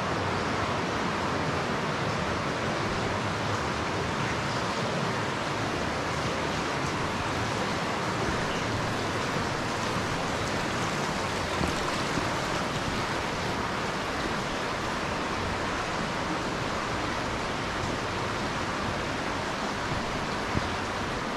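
Flowing water of a cave stream, a steady, even rushing noise.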